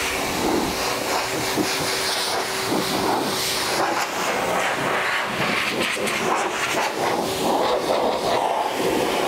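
MetroVac Revolution car dryer running on one of its two motors, a steady rush of blown air with a constant low whine underneath.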